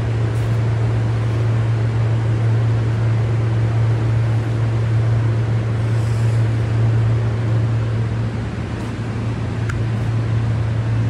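Steady low electrical hum with a fan-like rush of air from running shop equipment. It dips slightly about eight seconds in.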